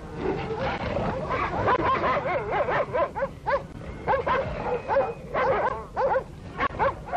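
Šarplaninac sheepdog and wolf fighting: a dense run of short animal cries whose pitch wavers up and down, one after another.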